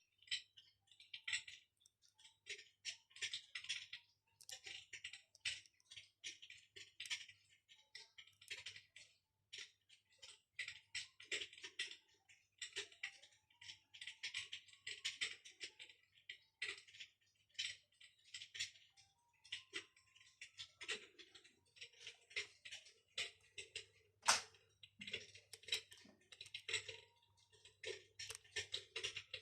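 Electric fireplace playing its crackling-fire sound effect: dense, irregular crackles and small pops, with one sharper pop about 24 seconds in, over a faint steady low hum.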